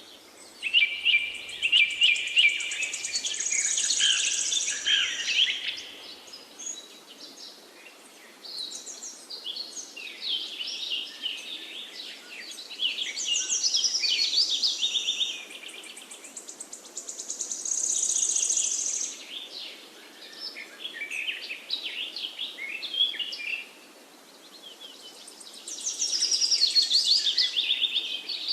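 Several forest birds singing, their songs overlapping in bouts every few seconds, some as fast high trills, over a faint steady hiss.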